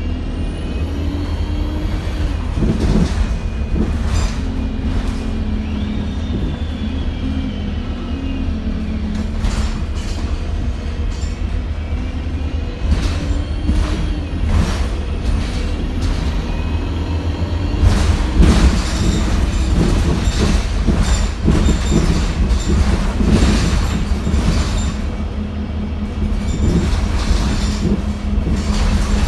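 Inside an Alexander Dennis Enviro 200 MMC single-deck bus on the move: a steady low engine and road rumble, the engine note rising and falling as it pulls away and slows. Frequent rattles and knocks from the body and fittings come on strongest about two-thirds of the way through.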